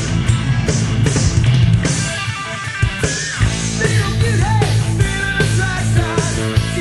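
A 1988 rock song played by a full band. About two seconds in, the bass thins out briefly, and then a lead line with bending notes comes in over the band.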